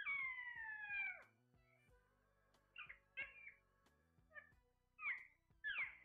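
Caged green parakeets calling: one long, slightly falling squawk lasting about a second at the start, then several short squawks, two around the middle and a quick run near the end.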